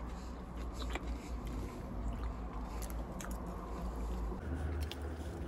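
Close-up eating sounds: biting and chewing, with a few light clicks, over a steady low rumble.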